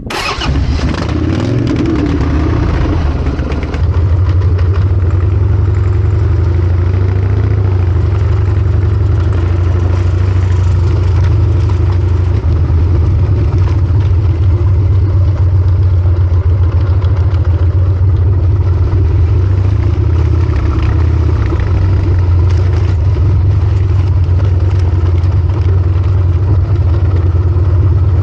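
Harley-Davidson Sportster XL1200C's air-cooled V-twin engine running loud through a short open exhaust pipe with little backpressure, while the motorcycle is ridden along a dirt trail. The engine note is low and steady, and it steps up louder about four seconds in.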